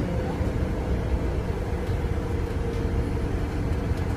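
Alexander Dennis Enviro 200 MMC bus's engine and Voith automatic gearbox heard from inside the passenger saloon: a steady low drone with a whine that holds roughly one pitch while the bus runs along.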